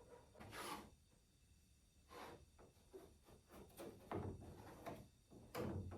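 Faint, irregular rubbing and scraping from hands working with wooden aircraft parts and epoxy-coating tools, a few short scrapes at a time with brief gaps between.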